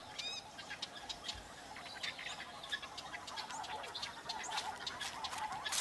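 Countryside ambience of many small birds chirping and calling, over a steady faint chorus, starting abruptly out of silence.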